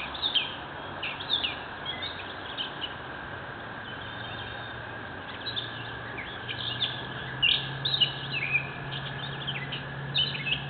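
Songbirds chirping: many short, high, down-sliding calls, pausing briefly around the middle, over a steady low hiss.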